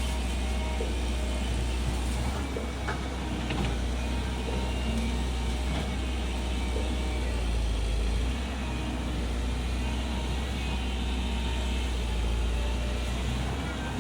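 Komatsu PC135 excavator's diesel engine running with a deep, steady drone, with a few faint knocks over it.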